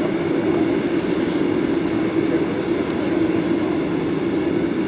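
Steady cabin rumble inside a Boeing 737-800 taxiing, heard from a seat over the wing: the CFM56-7B engines running at low thrust with the airframe rolling along the taxiway.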